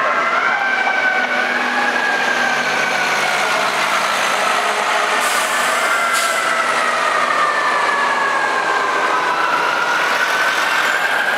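Fire engine siren wailing in long, slow glides, its pitch sinking over several seconds and rising again near the end, over city traffic noise. Two short hisses about five and six seconds in.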